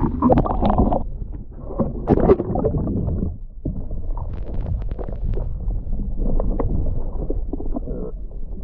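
Wind buffeting the microphone on a sailing boat: a constant low rumble with irregular rushing noise over it.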